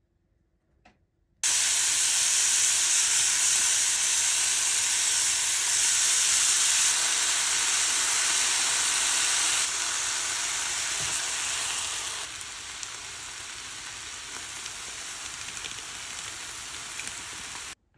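Food sizzling as it fries in a pan: bitter melon, pork, tofu and chikuwa. The sizzle starts suddenly, drops quieter twice and cuts off just before the end.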